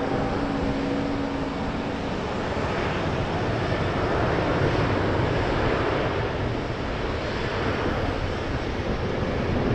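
Jet engines of taxiing Boeing 737 airliners, a steady roar with a low hum that fades out about two seconds in.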